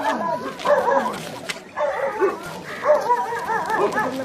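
A dog yelping and whimpering in short, repeated rising-and-falling cries, with people's voices mixed in.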